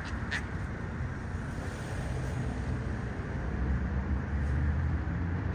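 Steady low outdoor rumble, like distant city traffic, with a single faint click just after the start.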